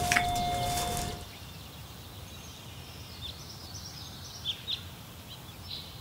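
The lower second note of a two-tone doorbell chime rings on and dies away about a second in. Then there is quiet outdoor background with a few faint bird chirps.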